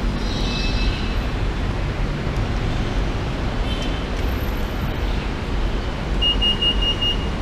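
Steady low rumble of background noise. About six seconds in, a ticket fare gate gives a quick run of about five short, high electronic beeps.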